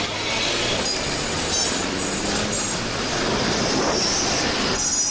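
Steady road traffic noise, with a high squeal starting near the end.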